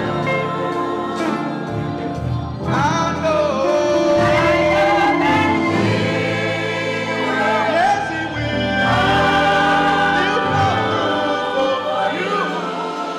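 Gospel choir singing.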